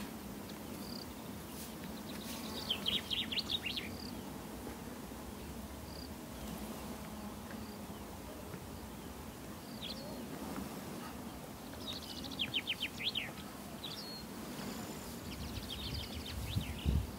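Small birds calling: scattered short high notes and two rapid high trills, about three seconds in and again about twelve seconds in, over a steady low background hum.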